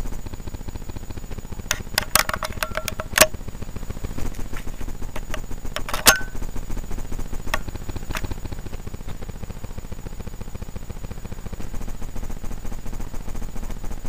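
Steady low rumble on the microphone of a handheld camera outdoors. Over it, a quick run of sharp clicks comes about two to three seconds in, a single louder snap about six seconds in, and two faint clicks a couple of seconds later.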